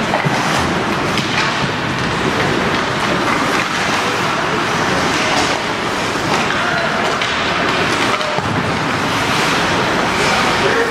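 Ice rink ambience during a hockey game: a steady wash of noise with indistinct voices, broken by a few sharp knocks.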